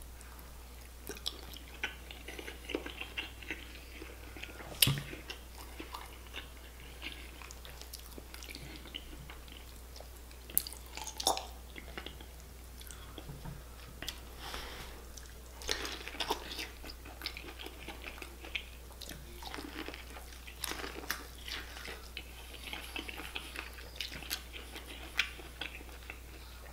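Close-miked chewing and wet mouth smacking while eating saucy seafood-boil meat, with scattered sharp clicks and smacks every second or two.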